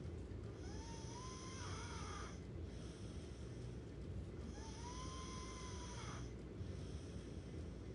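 A sleeping person snoring: two slow breaths, each carrying a thin whistling tone that rises and then falls, over a steady low hum.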